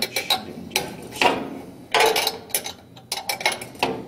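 Metal wrench clicking and clinking against a bed standoff nut as the standoff is tightened: an uneven run of sharp metallic clicks, with a couple of short scrapes about one and two seconds in.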